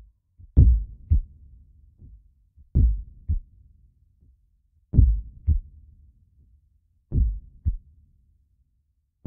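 Background music track built on a deep heartbeat-like double thump, a strong beat followed half a second later by a weaker one, repeating about every two seconds.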